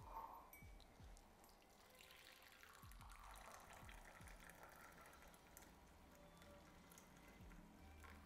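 Faint pouring of freshly pressed coffee from a French press into a ceramic mug, a thin steady trickle starting about two seconds in.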